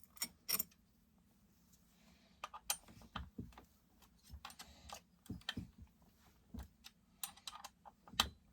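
Scattered small clicks and metallic clinks of hand tools and chainsaw parts being handled and fitted, about a dozen light knocks at irregular intervals.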